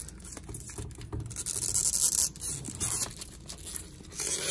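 Fingernails scratching and picking at the plastic shrink wrap on a cardboard box, with rustling crinkles of the film in bursts, strongest around two seconds in and again near the end.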